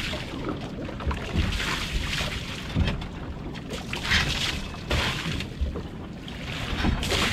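Wind buffeting the microphone over water slapping and splashing against the hull of a small open fishing boat, in short irregular rushes.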